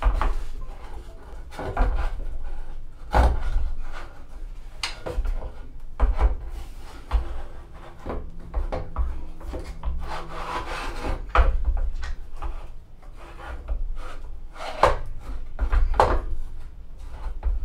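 The dovetail bar of a 14-inch Celestron telescope tube scraping, rubbing and knocking against the saddle of an iOptron CEM70 mount as the heavy tube is worked into place by hand. There are irregular bumps and scrapes, with a longer scrape about ten seconds in.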